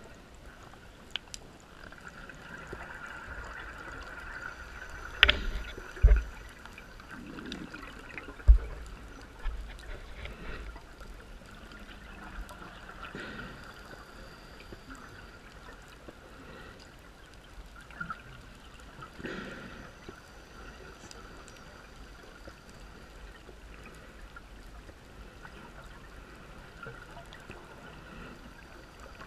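Underwater sound of a scuba diver breathing on a regulator: exhaled bubbles gurgling and trickling up past the microphone in swells every few seconds, over a steady hiss. A few sharp knocks stand out about five, six and eight seconds in.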